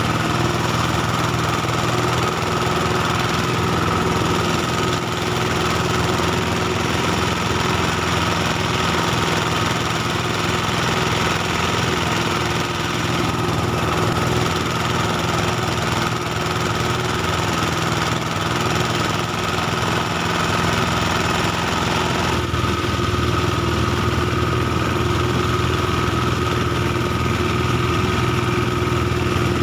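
Small engine of a rice threshing machine running steadily, its note shifting slightly about two-thirds of the way through.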